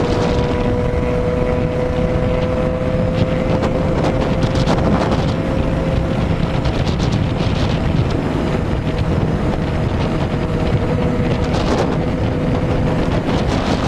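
Motorcycle engine running at a steady cruise on the open road, its note rising slightly over the first few seconds and then holding, under heavy wind rush on the rider's microphone.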